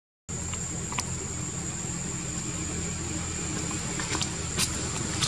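Steady low engine-like hum, as of an idling motor, under a constant background hiss, with a few faint ticks; the sound drops out for a moment at the very start.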